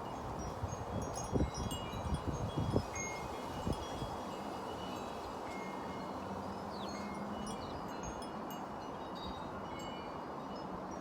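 Wind chimes tinkling irregularly in the wind, with gusts buffeting the microphone in the first few seconds.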